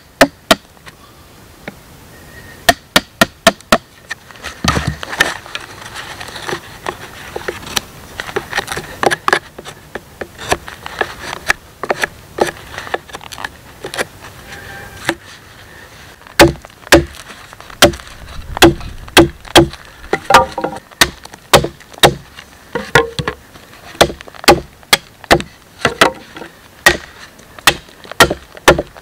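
Hatchet chopping wood, pointing the ends of wooden stakes against a log block: a string of sharp, irregular chops, about one to two a second.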